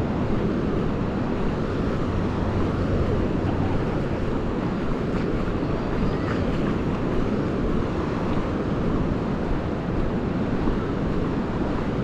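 Wind blowing across the microphone over the wash of sea surf: a steady, fairly loud noise, heaviest in the low end, with irregular gusts.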